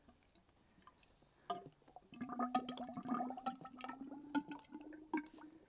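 10-weight fork oil pouring from a bottle into an upright Suzuki DR650 fork tube, starting about a second and a half in. The pour glugs and bubbles over a hollow tone that rises slowly in pitch.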